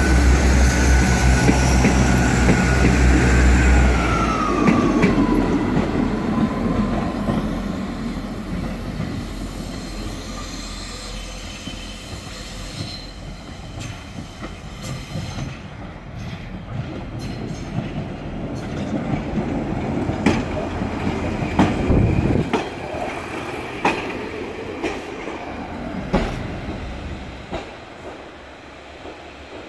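Class 158 and Class 159 diesel multiple units pulling away under power, their diesel engines running loud for about four seconds, while a high tone slides down in pitch as they draw off. In the second half a Class 143 Pacer diesel railbus comes in over the points, its wheels clicking and knocking over the rail joints.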